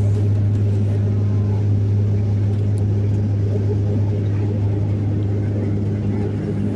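A Bombardier airliner's engines running at a steady pitch, heard inside the passenger cabin as a loud, even low drone with a humming tone.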